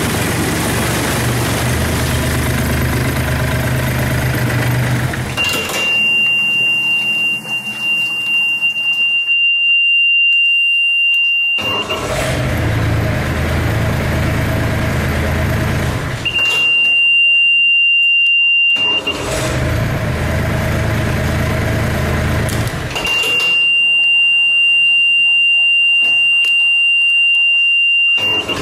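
Yanmar D40 outboard engine running, stopped three times. Each time it stops, the control panel's warning buzzer sounds one steady high beep for several seconds while the charge and oil-pressure lamps are lit. Each time the engine is restarted the buzzer cuts off, and the engine runs again.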